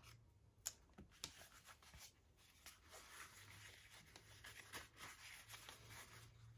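Faint rustling and rubbing of an oil-finished tin cloth wallet being folded and turned over in the hands, with a few soft taps in the first two seconds.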